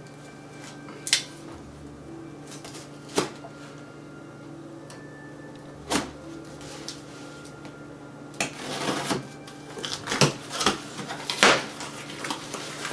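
A cardboard shipping box being opened by hand: a few sharp clicks and knocks, a folding knife slicing through the packing tape, then cardboard flaps and packing material rustling. Near the end come several louder knocks and rustles as the box is opened up.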